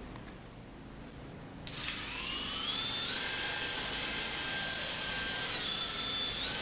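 Minion toy helicopter's small electric motor and coaxial rotors starting up about a second and a half in: a high whine that rises in pitch and then holds steady. Near the end the pitch dips briefly and climbs back, the motor slowing and speeding up again as its infrared height sensor controls the throttle.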